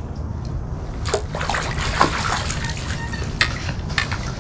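Water splashing and dripping as a hooked largemouth bass is scooped into a landing net and lifted from the river, with a few sharp clicks and knocks of gear about a second in and again near the end.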